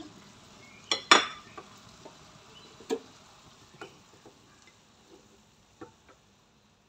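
A cooking pot and spatula knocking and clinking as stir-fried squid is scraped out of the pot onto a plate: a strong pair of knocks about a second in, then a few lighter ones spaced out, dying away near the end.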